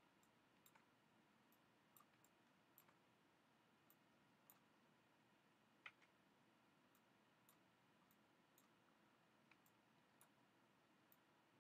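Near silence with faint, irregular computer mouse clicks, one slightly louder about six seconds in.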